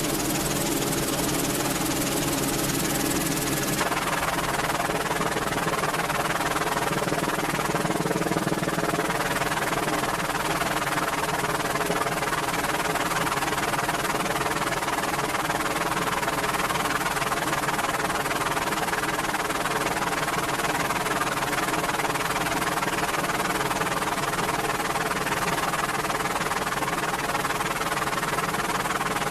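Merlin helicopter's turbines and rotor running steadily. A high hiss in the sound drops away suddenly about four seconds in.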